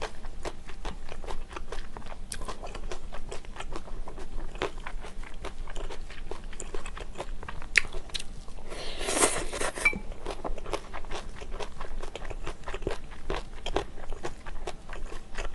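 Close-miked eating of stir-fried sauce yakisoba noodles with beef and vegetables: crunchy bites and wet chewing, a quick run of clicks, with one longer breathy sound about nine seconds in.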